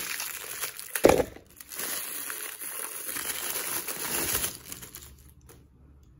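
Clear plastic bag crinkling as it is handled and a metal desk clamp is taken out of it, with one sharp knock about a second in. The crinkling dies away near the end.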